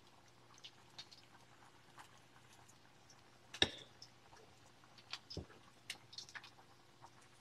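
Salmon patties frying in oil in a cast iron skillet, giving scattered small pops and crackles over a faint low hum. A sharp knock about three and a half seconds in is the loudest sound, and a dull thump follows about five seconds in.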